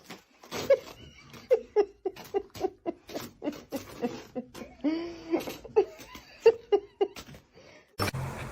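A person laughing in a long run of short, pitched bursts, two to three a second. Near the end it cuts off and music begins.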